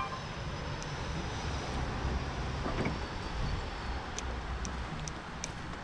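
Steady outdoor background rumble and hiss, with a few faint sharp ticks in the second half.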